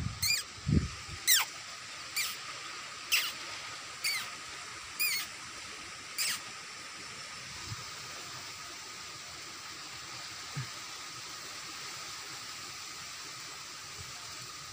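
An animal's high, sharply falling squealing cries, seven of them about one a second, stopping about six seconds in, over a faint steady high drone.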